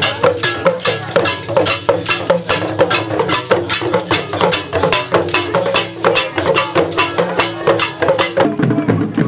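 Traditional West African drumming for a masked dance: a steady, loud beat of sharp strokes, about three a second. About eight and a half seconds in it changes abruptly to a duller, deeper drum sound.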